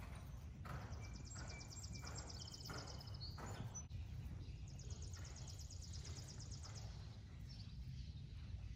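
Horse walking on sand arena footing, its hoofbeats coming as soft, regular thuds under a steady low rumble.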